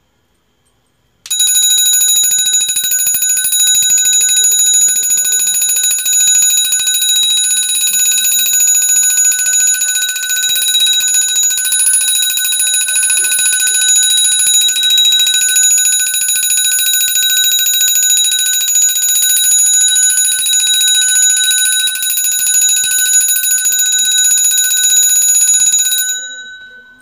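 Homemade electric bell: a small DC motor, run from a power bank, rattles a salvaged bicycle bell dome, giving a loud, continuous, rapid metallic ringing just like a bicycle bell. It starts about a second in and cuts off suddenly about a second before the end.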